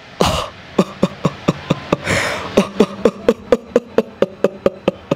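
A man imitating another person's laugh: a long string of short, clipped chuckles at about four a second, with a breathy gasp about two seconds in.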